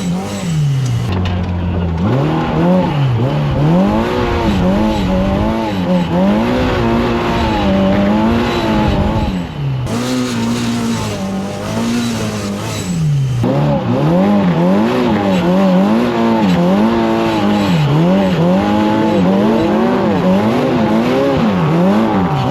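Turbocharged Polaris RZR Pro R side-by-side engine revving up and down again and again, the pitch swinging high and low every second or two as it is driven fast on the throttle.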